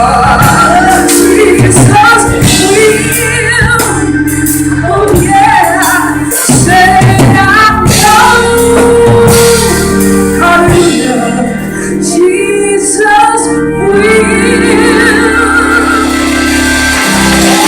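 Gospel group singing live with band accompaniment, voices over a steady bass line.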